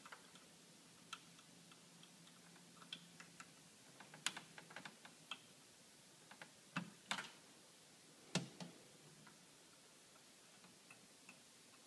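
Faint, scattered clicks and ticks of plastic wire-harness connectors being handled and pushed into the sockets of an LED TV's main board. The clicks come irregularly, a few of them sharper and louder in the middle.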